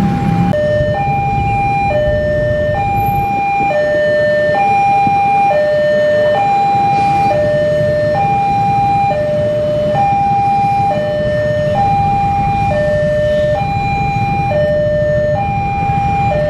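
Railway level-crossing alarm sounding a steady two-tone electronic chime, a higher and a lower note alternating about once a second. Beneath it runs the low rumble of an approaching diesel-hauled passenger train.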